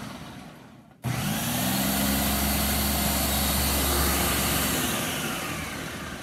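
Ninja food processor pulsed twice while chopping chickpeas: the motor winds down from one pulse, cuts out, then starts again about a second in, runs loud and steady for about four seconds, and spins down near the end.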